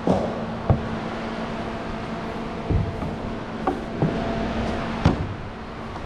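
Irregular clunks and thumps of a person climbing up onto a bus roof, about half a dozen over a few seconds, heard close up on a body-worn microphone. Under them runs a steady low hum that stops about four seconds in.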